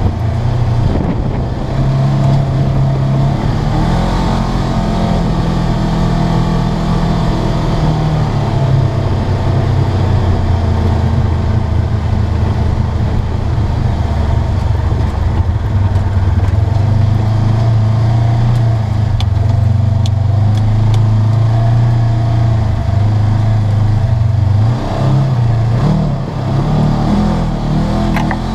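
Polaris RZR 900S side-by-side's parallel-twin engine running under way on a dirt trail, heard from inside the open cab with tyre and wind noise. The engine note drops about eight seconds in, climbs again midway, dips briefly and rises near the end as the throttle changes.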